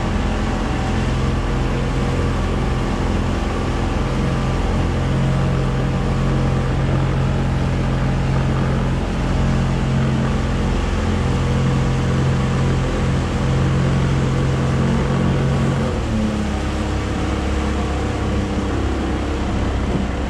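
Motorboat engine running steadily while under way, its tone shifting about sixteen seconds in, over the hiss of water against the hull and wind.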